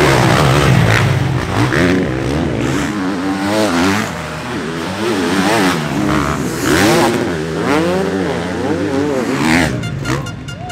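Motocross bike engines revving hard on the track, the pitch rising and falling again and again as the throttle opens and closes. The engine noise drops away near the end.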